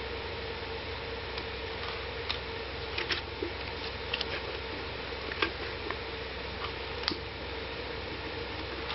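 Steady hiss with a faint low hum, and a few light clicks scattered through.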